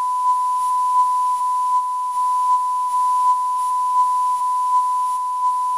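Censor bleep: one long, steady beep tone dubbed over speech to blank out a word.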